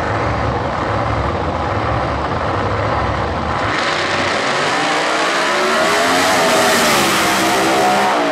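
Supercharged V8 of a blown Mustang drag car running with a heavy low rumble on the start line. About four seconds in it launches at full throttle, getting much louder and brighter. Its pitch climbs as it accelerates away, then drops near the end.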